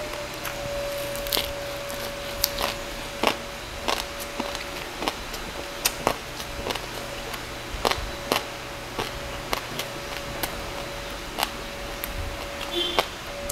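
Close-miked chewing of a mouthful of crispy roast pork belly and lettuce: irregular wet crunches and mouth clicks, about one or two a second.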